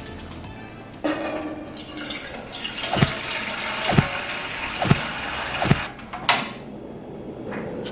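Water pouring in a stream into an empty aluminium ramyun pot, starting about a second in and stopping near six seconds, with dull thumps about once a second during the pour. A sharp click follows shortly after the pour stops.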